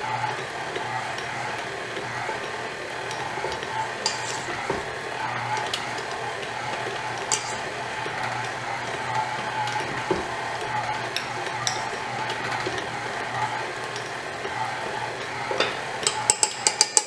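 KitchenAid stand mixer running on low speed, its dough hook kneading a dough that is just coming together: a steady motor hum with occasional light clicks. Near the end comes a quick run of sharp clinks from a utensil against a bowl.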